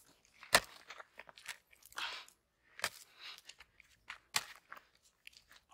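Dry, cracked mud clods crunching and cracking as they are stepped on and broken up. A few sharp cracks come a second or more apart, the loudest about half a second in, with softer gritty crunches between them.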